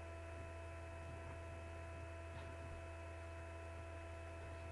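Steady low electrical hum with a few fixed higher tones over faint hiss: mains buzz picked up in the recording, with no other sound.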